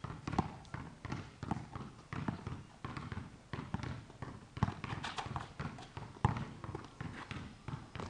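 Basketball dribbled hard on an outdoor concrete court: a quick, uneven series of sharp bounces.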